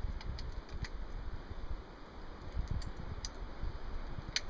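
Thompson/Center Contender Super 14 pistol's break-open action being handled between shots: a scattered series of small metallic clicks, the sharpest one near the end.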